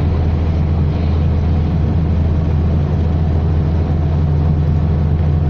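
Steady road and engine noise heard from inside a moving car's cabin: a low drone with an even hiss of tyres on the road.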